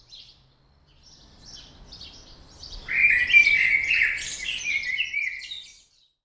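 Birds chirping and singing, sparse at first and then much louder and busier from about three seconds in, cutting off suddenly near the end.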